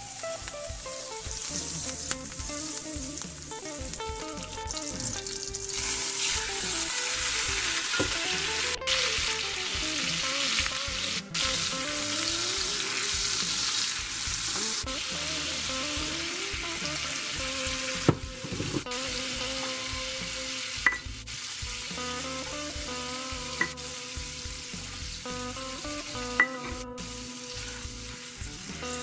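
Butter and oil sizzling in a hot cast iron skillet, the sizzle getting louder about six seconds in, while a silicone spatula stirs and scrubs the browned bits off the bottom of the pan for the sauce. Several sharp clicks of the spatula against the pan come in the second half.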